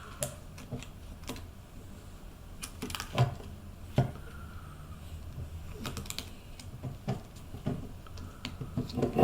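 Irregular light clicks and taps of a plastic Paterson developing reel and 35mm film being handled by feel as the film is fed onto the reel, with a few sharper clicks about three, four and six seconds in.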